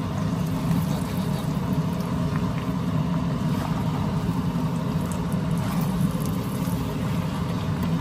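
Steady low rumble of a running vehicle, even throughout.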